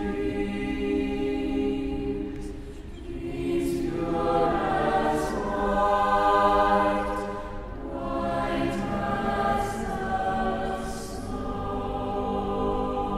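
Mixed-voice chamber choir singing held chords, dipping briefly and then swelling louder in the middle before settling into steadier singing.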